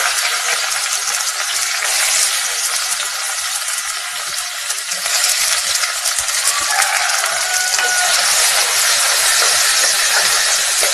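Chopped onions frying in hot oil in an earthenware pot: a steady sizzling hiss, with the scrape and light knocks of a wooden spatula stirring them.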